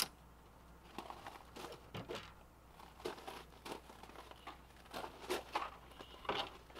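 Plastic refrigerator vent cover on an RV's side wall being unlatched, pulled off and handled: a sharp click at the start, then scattered light clicks and rustles.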